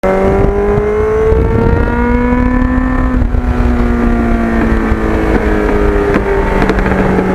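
Kawasaki GPX750R Ninja's inline-four engine running under way, its note rising for about three seconds and then easing slowly lower, with low wind and road rumble underneath.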